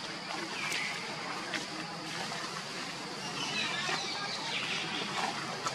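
Steady outdoor background hiss with a high, even buzz. A short falling chirp comes about a second in, and a few faint clicks and scattered chirps follow later.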